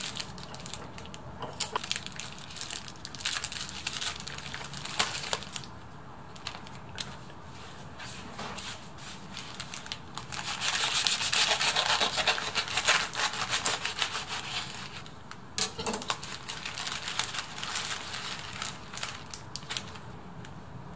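Parchment paper crinkling and rustling as it is folded around a sandwich. About halfway through comes a loud, crunchy sawing as a knife cuts through the paper-wrapped toasted sandwich, followed by more scattered paper crackles.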